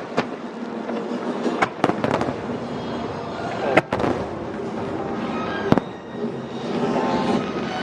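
Aerial fireworks going off: a handful of sharp bangs spaced a second or two apart over continuous crackling.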